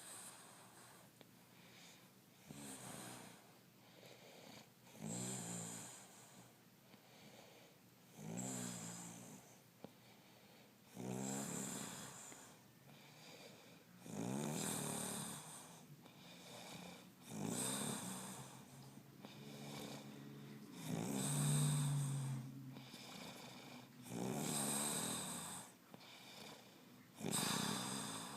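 A man snoring in his sleep, with a rattling snore about every three seconds. Many snores carry a breathy hiss.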